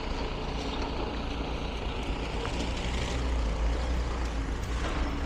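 Steady low rumble of a heavy engine running, with general outdoor noise, a little stronger about three to four seconds in.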